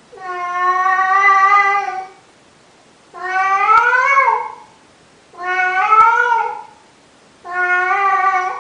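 Elderly domestic cat yowling loudly after a meal, in four long, drawn-out calls with short pauses between. The middle two calls rise and then fall in pitch.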